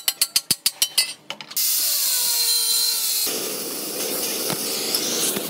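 Claw hammer striking the rusty steel rake head and pipe handle in quick blows, about six a second, each with a metallic ring, stopping about a second in. After a short break comes a steady hiss with a few falling tones, and from about three seconds in the hiss of an oxy-fuel cutting torch burning through the rusty steel pipe.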